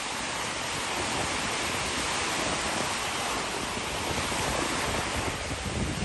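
Small, choppy waves breaking and washing onto a sandy shore, a steady rushing hiss, with wind buffeting the microphone.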